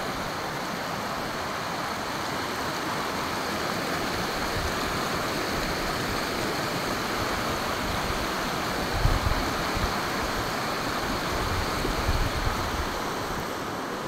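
Shallow creek rushing over rocks and riffles, a steady rush of water. A few brief low bumps on the microphone about nine and twelve seconds in.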